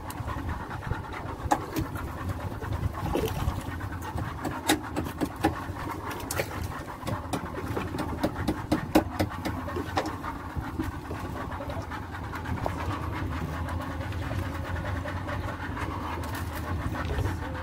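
Small fishing boat's engine running steadily, with scattered sharp clicks and knocks over it during the first ten seconds or so.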